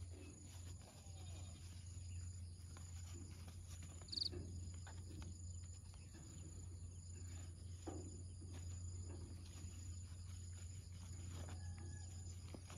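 Faint rustling of a paper towel pressed and folded around raw fish fillets, over a steady low hum and a steady high drone, with one short high chirp about four seconds in.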